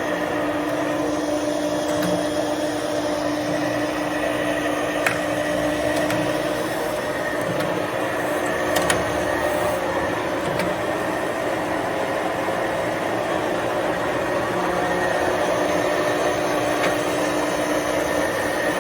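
Warner & Swasey No. 3 turret lathe running under power: a steady machine hum with a constant gear whine, and a few light clicks.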